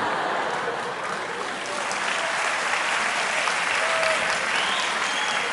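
Studio audience applauding, a steady dense clapping of many hands.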